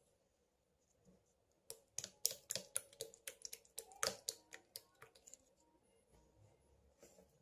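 A quick run of sharp clicks, about three a second, for roughly three and a half seconds starting near two seconds in, with one more faint click near the end.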